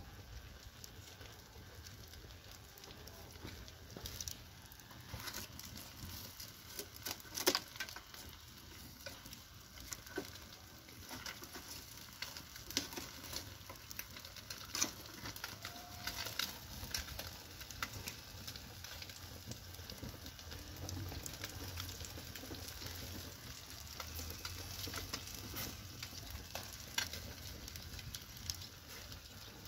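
Wood fire burning under grilling fish, crackling with irregular sharp pops over a low steady hiss.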